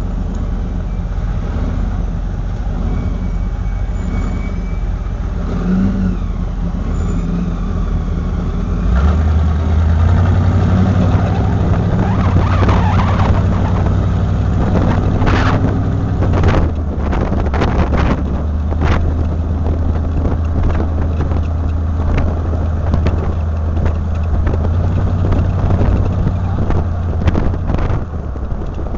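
Vehicle engine and road noise heard from on board while driving along a street. The engine note gets louder about nine seconds in as the vehicle picks up speed, then holds steady.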